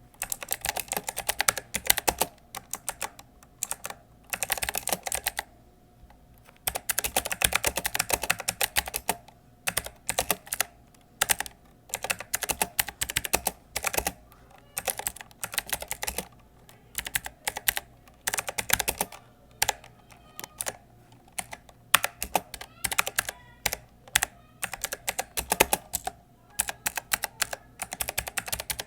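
Typing on a Logitech G513 mechanical keyboard with clicky blue switches: rapid bursts of sharp key clicks, broken by short pauses.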